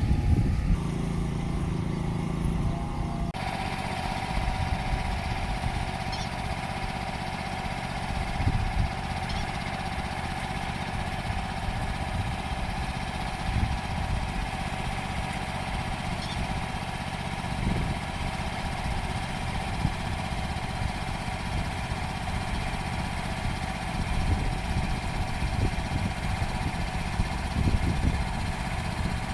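Engine of an ISEKI PQZ43 riding rice transplanter running steadily at working speed. A short different sound gives way to it abruptly about three seconds in.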